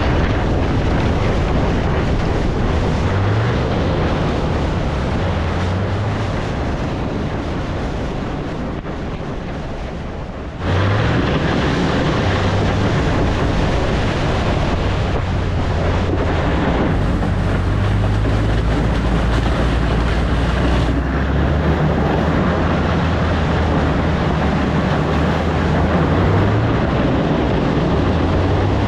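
Pickup truck engine pulling under load while an overturned junk car is dragged on its roof along a gravel road, giving a loud, steady scraping rumble. The low engine note climbs in pitch several times, and the sound jumps suddenly louder about ten seconds in.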